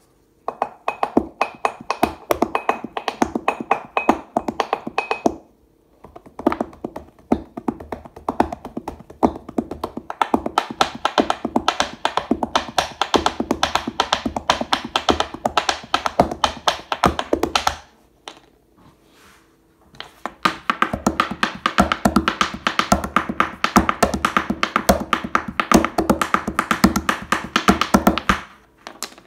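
Fingertips and palms drumming a fast groove on a wooden tabletop, a dense run of taps and thumps. It plays in three passages, with a short break about five seconds in and a longer one about halfway through.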